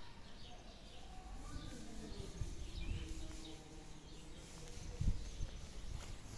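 Outdoor ambience: small birds chirping faintly over a low wind rumble, with a dull thump about five seconds in.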